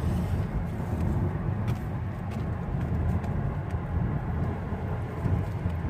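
Steady low rumble of a passenger car heard from inside its cabin.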